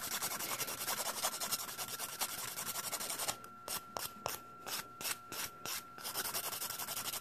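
An 80-grit nail file rasping back and forth over a gel nail in quick strokes, pressed hard to grind the gel colour off the thick middle of the nail. About halfway through, the strokes slow into separate rasps with short gaps between them, then run together again near the end.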